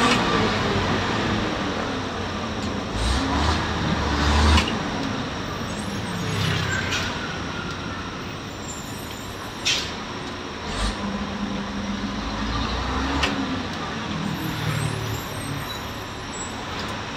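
City bus heard from inside, its engine running and rising and falling in pitch as it moves in slow traffic, over steady road noise, with a few short sharp clatters from the bus.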